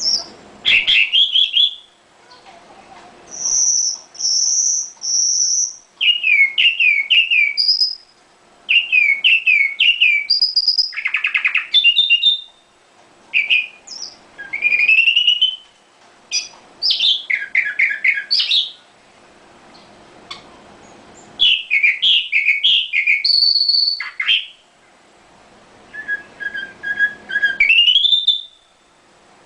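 Small songbird singing: phrase after phrase of high whistled notes, runs of quick chirps and short trills, with brief pauses between the phrases.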